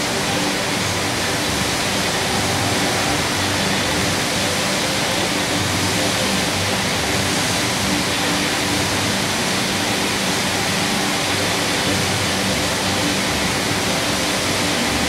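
Fountain jets spraying and splashing water in a steady, even rush.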